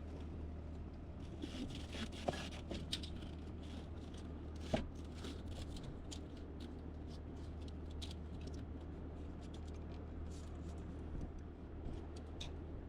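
Scattered light clicks and scrapes of parts being handled as a steering column is worked back into place under a car's dash, with two sharper clicks about two and a half and five seconds in, over a steady low hum.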